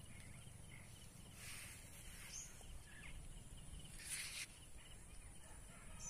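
Faint open-air field ambience: a low wind rumble on the microphone, two brief hissy swells, and a few faint, scattered bird chirps.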